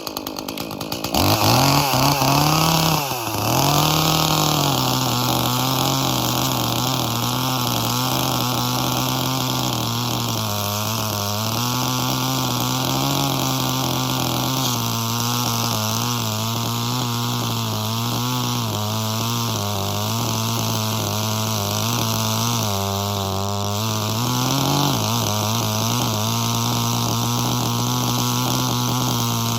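Small homeowner-grade chainsaw cutting through a log: it revs up and dips in the first few seconds, then runs steadily under load with its pitch wavering as the chain bites. About 25 seconds in, the pitch rises briefly and then settles again.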